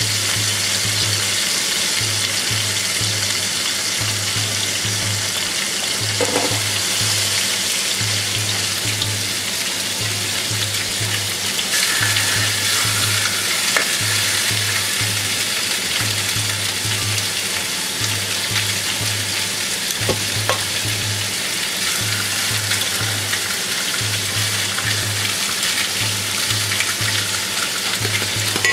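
Pork spare ribs sizzling in hot oil in a frying pan as they are seared brown, turned now and then with metal tongs. Under the sizzle, a low hum pulses about twice a second.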